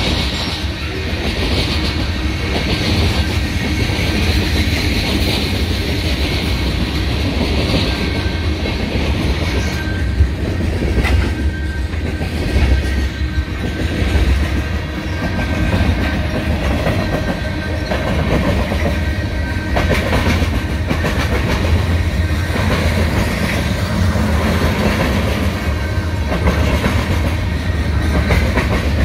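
A train passing close by on the BNSF triple-track main line: a steady, loud rumble with a continuous clatter of wheels over the rails.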